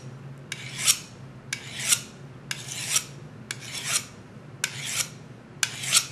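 DMT Diafold diamond sharpener, coarse 220-grit side, scraped along the edge of a dull skinning knife in repeated up-and-out strokes, six strokes about one a second. Each stroke is a rasping scrape that ends in a sharper, louder scrape. The steel is being ground down to fresh metal on a dull edge.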